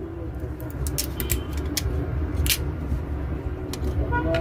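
A few small, sharp clicks and taps of phone parts being handled during reassembly, over a steady low rumble.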